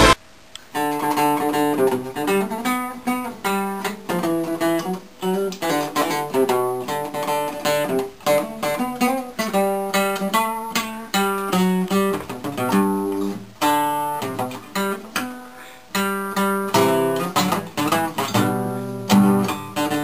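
Classical acoustic guitar played solo: plucked notes and strummed chords, starting about a second in.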